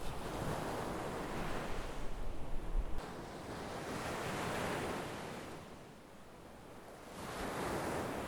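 Sea waves breaking and washing on the shore in three surges, falling back between them. A low wind rumble on the microphone under the first wave cuts off suddenly about three seconds in.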